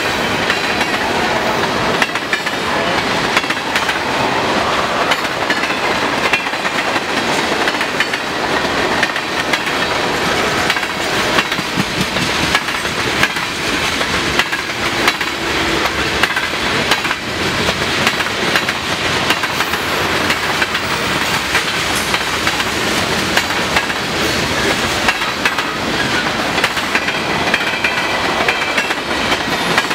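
Freight cars of a long manifest train rolling past: steady, loud wheel-on-rail noise with a clickety-clack of wheels knocking over rail joints.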